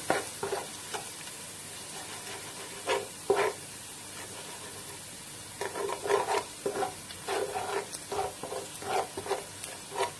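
Onions and garlic frying in vegetable oil in a pot, sizzling steadily, while a spoon stirs them to dissolve stock cubes into the oil: a couple of stirring strokes about three seconds in, then a run of quick strokes from about halfway.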